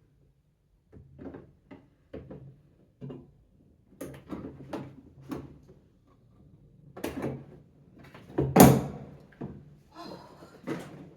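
Baby dining chair parts being pushed and knocked into place by hand: a series of separate knocks and clatters, the loudest about eight and a half seconds in, with a short scraping rattle near the end.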